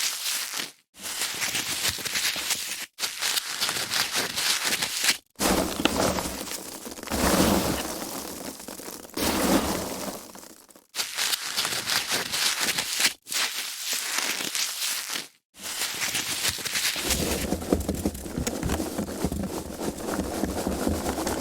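Foam packaging being handled: squeezed and rubbed with a dense crinkling, crunching crackle. It comes in stretches broken by several brief silences.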